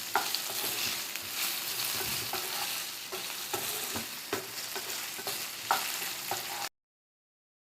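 Potato pieces frying in hot oil in a pan, a steady sizzling hiss with occasional clicks. It cuts off suddenly to silence about seven seconds in.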